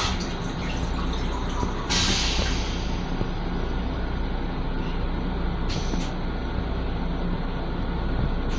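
Steady low rumble and hum of a Metro-North M7 electric railcar, heard from inside its restroom. A short hiss of air comes about two seconds in, and a fainter, briefer one near six seconds.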